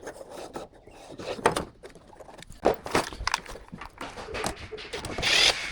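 Scattered clicks and light knocks as the Loock V5 MAX smart lock's body is fitted into the door, with a short scraping rasp near the end.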